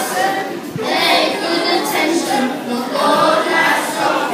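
Children's choir singing an anthem.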